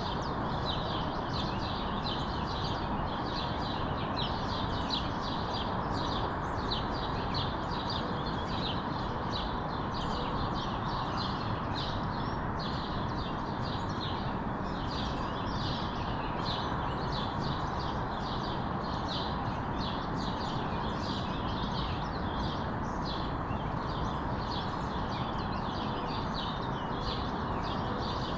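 A chorus of small songbirds chirping busily, many short overlapping chirps, over a steady background rush of neighbourhood ambient noise.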